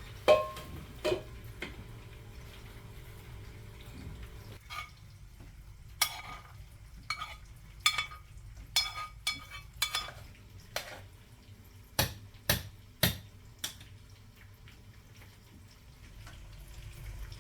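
Kitchenware clattering: a utensil knocking and clinking against pots and dishes, about fifteen irregular sharp clinks with a short ring, the loudest just after the start and three close together near the end. A faint low hum stops about four seconds in.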